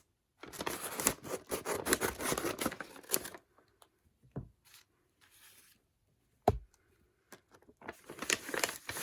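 A package being torn open and its wrapping rustled and crinkled by hand, in two busy stretches with a quieter gap between them and one sharp knock about six and a half seconds in.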